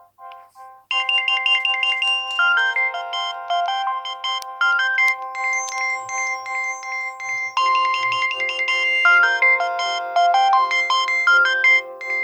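Nokia 6030 mobile phone playing one of its built-in polyphonic ringtones through its small speaker: a short burst of notes, then from about a second in a bright, many-voiced electronic melody that starts over about halfway through.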